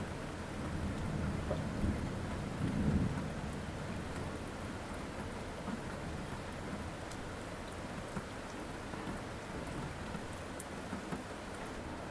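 Steady rain with scattered drop ticks, and a low rumble of thunder that swells in the first few seconds, is loudest about three seconds in, then fades back under the rain.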